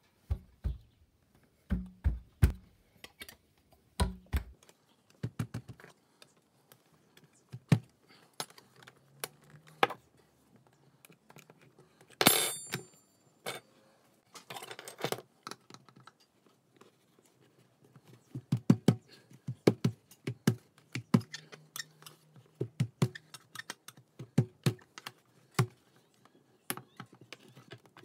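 Scattered clicks and taps of a metal knife blade and fingers against a uPVC window frame, with one sharper, ringing metallic clink about twelve seconds in.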